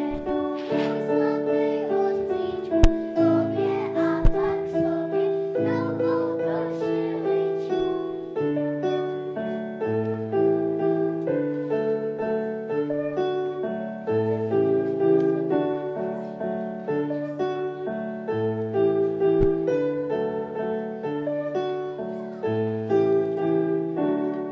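A dance tune played on a keyboard, held chords over a bass line that changes notes in a steady rhythm.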